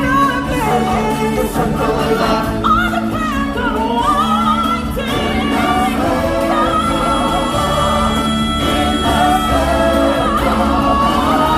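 Live stage-show music: solo voices and a choir singing over a band backing, with one long held note in the middle.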